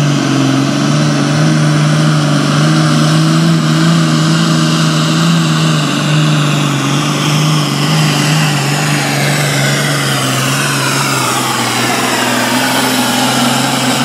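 International super farm pulling tractor's turbocharged diesel engine running flat out under load as it drags the pulling sled, a loud steady drone. In the last few seconds, higher whistling tones slide down in pitch as it goes past.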